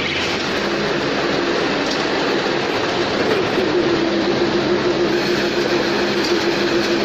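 Automatic silage baler machine running: a loud, steady mechanical din with a low hum whose pitch wavers and then settles about three and a half seconds in.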